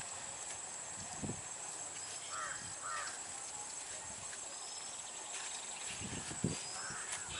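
A steady high-pitched insect drone, with two short cawing bird calls about two and a half and three seconds in. A few dull low thumps come about a second in and again near the end, the last of them the loudest sound.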